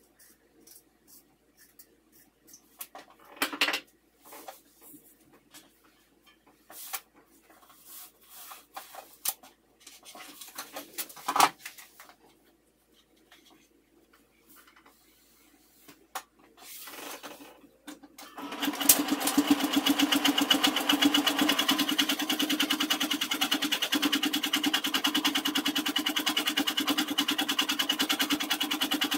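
Domestic electric sewing machine stitching a zipper onto fabric, running steadily with a rapid, even needle rhythm from about two-thirds of the way in. Before it starts, scattered scissor snips and soft fabric handling.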